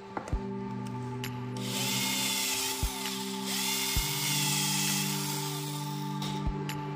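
Cordless drill spinning a bit through the centre hole of a small black plastic part, opening it out, in two spells with a short dip between, its pitch wavering. A few light knocks from handling the part.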